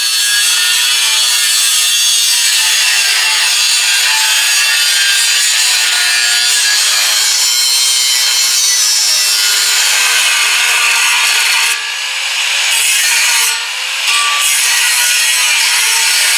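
A 4-inch electric cutoff wheel cutting through the metal rear bumper, a loud, steady grinding hiss over a wavering motor whine. Twice, about three-quarters of the way through, the cut eases off briefly before biting in again.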